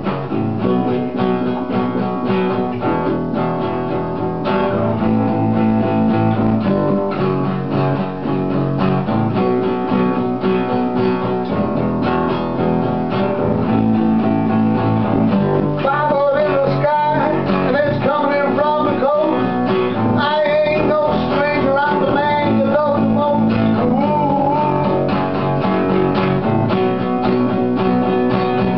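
An acoustic guitar strumming chords alongside an electric guitar, playing a song together; from about halfway a bending, wavering lead melody rises above the chords.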